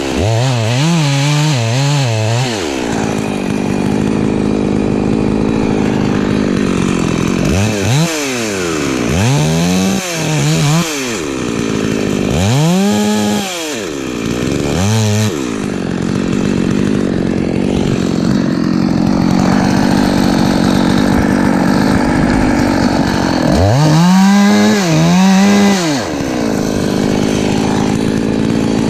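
Husqvarna 254 two-stroke chainsaw revved up and down several times in quick swells, held at high speed for long stretches in between.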